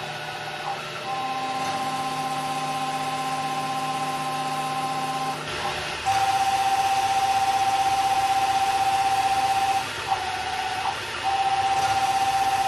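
Home-built CNC lathe turning a metal part: a steady high machine whine over a lower hum, breaking off briefly a few times and louder from about six seconds in.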